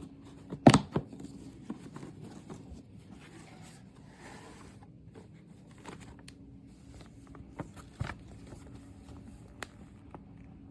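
Things being handled: a sharp knock about a second in, then rustling and scattered clicks and light knocks, over a faint steady low hum.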